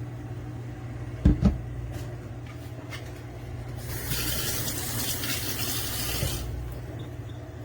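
Two knocks about a second in, then freshly frothed milk pouring into a mug: a hissing pour lasting about two and a half seconds that cuts off sharply. A steady low hum runs underneath.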